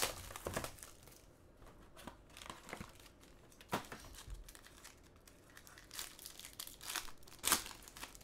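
Foil-wrapped trading-card pack being crinkled and torn open by hand, with the cardboard box handled at the start: irregular crackling and rustling with a few sharp crinkles, the loudest near the start and near the end.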